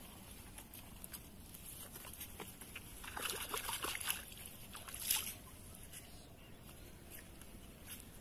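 Water splashing and sloshing at the edge of a river as a hand pulls a fishing line through the shallows, in a short bout about three seconds in, with one sharper splash about a second later.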